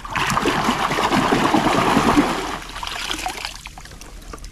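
Shallow water splashing and sloshing, busy for about two and a half seconds, then dying down.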